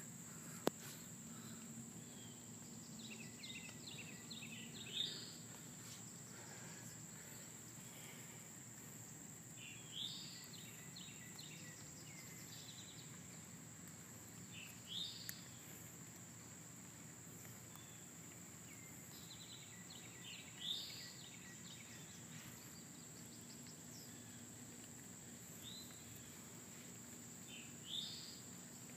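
Quiet outdoor ambience: a steady high-pitched insect drone, with a bird singing a short phrase about every five seconds, five times.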